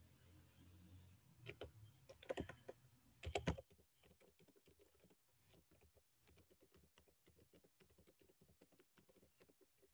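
Faint typing on a computer keyboard: a few louder clusters of key clicks in the first few seconds, then a quicker run of soft keystrokes.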